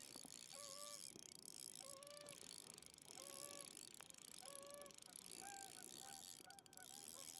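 Geese honking faintly, a string of short calls about a second apart that come quicker and a little higher-pitched near the end.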